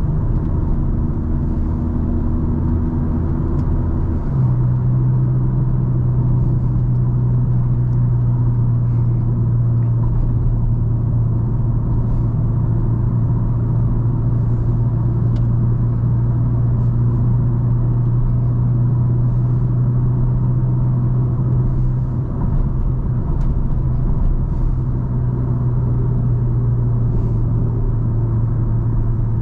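Car engine and tyre road noise while driving, a steady low drone whose main pitch steps up about four seconds in and then holds steady.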